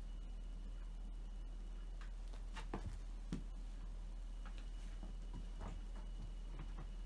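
Two domestic cats play-fighting: soft scattered thumps and scuffs of paws on a foam yoga mat and carpet, with a couple of louder thumps around three seconds in.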